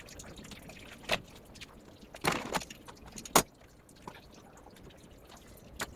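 Hand tools working on car engine parts: a few sharp metallic clicks and knocks, the loudest about three and a half seconds in, with a brief scraping rattle just past two seconds.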